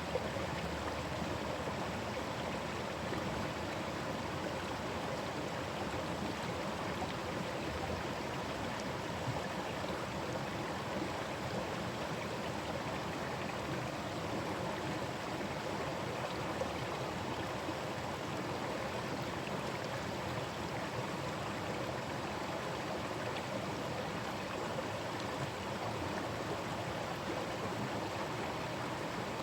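Forest stream running steadily over its bed, a constant rush of flowing water with a busy burble.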